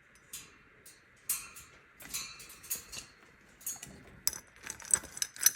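Hanging bird toys made of wooden beads threaded on metal rods and hoops, rattling and clinking in a run of irregular clicks that grows busier and louder toward the end.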